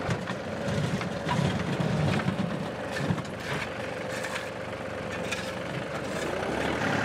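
John Deere 2038R compact tractor's diesel engine running steadily while its loader bucket scrapes and pushes through packed dirt and gravel, with scattered clicks and crunches of stones.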